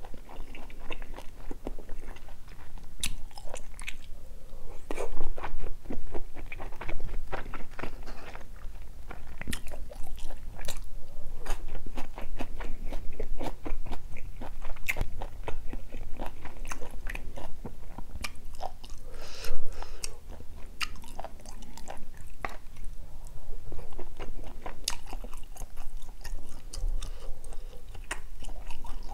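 Close-miked chewing of spicy gopdori-tang, a chicken and beef intestine stew: steady wet, smacking mouth sounds with many sharp clicks as mouthfuls are chewed.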